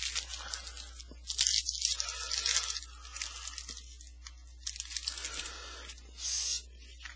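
Plastic trading-card pack wrapper crinkling and tearing as a new pack is opened, in several uneven bursts of rustling, with cards shuffled between them.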